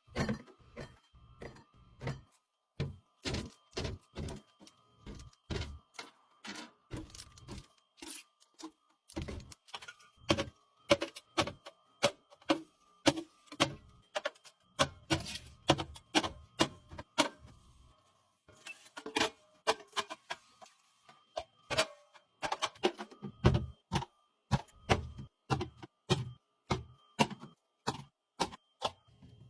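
Drink cans and bottles being set one after another into a drinks fridge: an irregular run of knocks and clinks, at times several a second.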